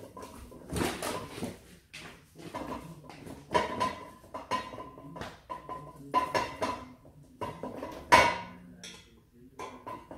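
Hex key turning the bolt at the top of a kick scooter's handlebar stem: repeated bursts of metallic clicking and scraping, with one sharper clank a little after eight seconds in.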